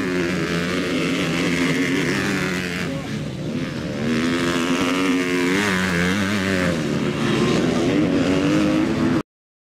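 Motocross bike engines revving, their pitch rising and falling as the bikes ride the track. The sound cuts off suddenly near the end.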